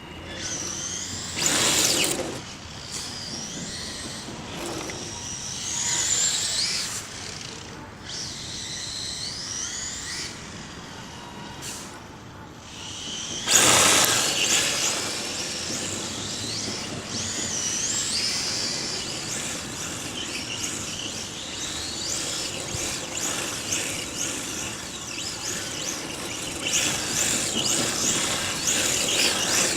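Electric 1/10 RC drift car running on a court surface: the motor whine rises and falls with the throttle, with tyres scrubbing as it slides, and two louder surges about a second and a half in and near the middle.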